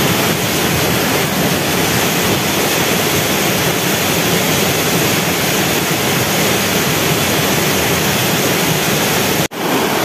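Waterfall rushing, a loud, steady, even noise of falling water. It cuts out for an instant near the end.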